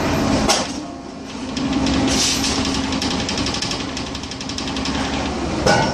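Drilling rig floor machinery running with a steady hum and a fast, even rattle, with a sharp metal knock about half a second in and another near the end.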